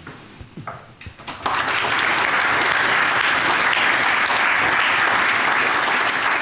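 Audience applauding, a few scattered claps at first, then full steady applause from about a second and a half in.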